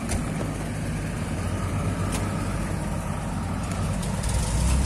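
A steady low engine drone with a few faint clicks, growing a little louder near the end.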